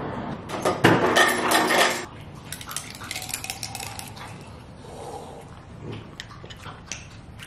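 Metal scissors and a plastic bottle being handled while she works at the bottle's foil seal: clinks and clatter, loudest for about a second and a half near the start, then lighter scattered clicks and rustling.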